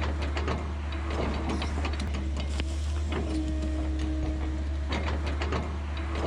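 Machinery running, with a constant low hum under a busy clatter of clicks and rattles and a held tone that comes back roughly every three seconds.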